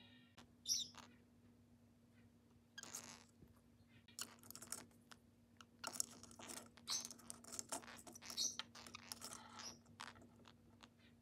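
Pacific parrotlet pecking and shoving a small plastic wind-up flapping-sparrow toy: a run of irregular clicks and taps of beak on plastic, with a few short high chirps from the bird.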